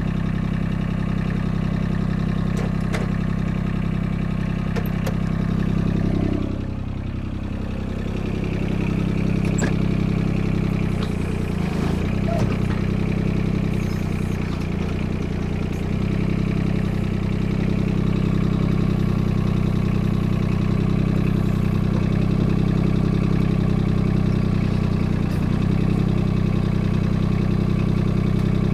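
The Yanmar three-cylinder diesel of a 2004 Kobelco SK13SR mini excavator running steadily, its sound dipping briefly about six seconds in, while the machine's hydraulic functions are tried out.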